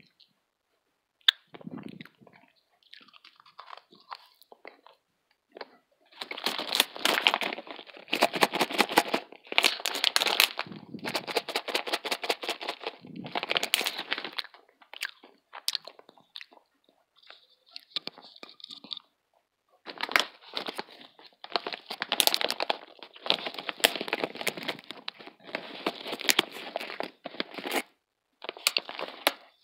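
A thin plastic snack packet crinkled and rustled close to the microphone in long bouts, with quieter handling in between.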